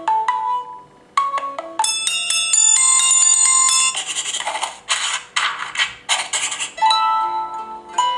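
Samsung Galaxy Tab stock ringtones playing: short electronic tunes of bell- and mallet-like notes, changing every second or two, with a stretch of rhythmic percussive hits in the middle.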